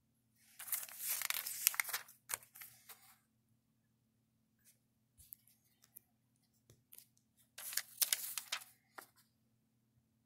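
Pages of a small paper booklet being turned by hand: two bouts of paper rustling, one starting just after the beginning and one about eight seconds in, with a few light paper ticks between.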